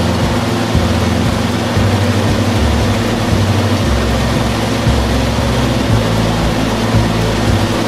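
Mobile shredder running under load with material in its hopper: a steady, loud heavy-machine drone with a strong low hum.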